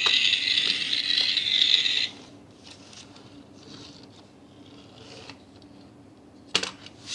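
Die-cast metal toy jeep's pull-back motor and wheels whirring as the toy is worked in the hands, a steady high whirr that stops about two seconds in. A single sharp knock near the end as the toy is set down on the wooden table.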